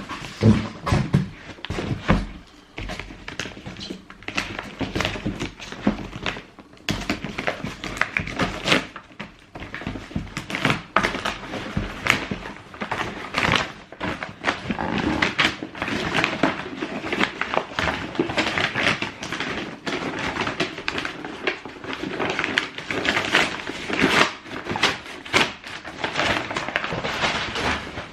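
Cardboard shoebox and its paper packing being handled: continuous rustling and crackling, with a few dull thumps in the first couple of seconds.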